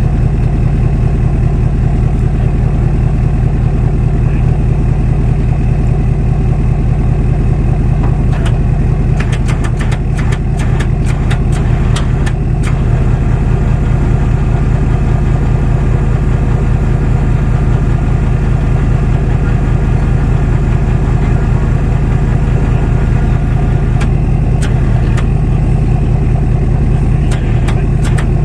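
Vehicle engine running steadily, with clusters of rapid clicks about nine seconds in and again near the end.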